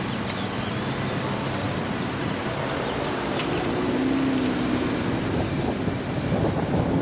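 A car driving slowly along a town street: steady engine and road noise, with a low drone that briefly swells about four seconds in.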